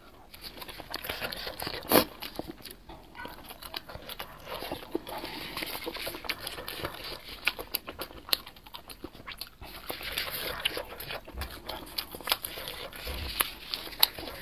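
Close-miked chewing of barbecued skewer food: a steady run of small crunches and mouth clicks, with one sharp louder click about two seconds in.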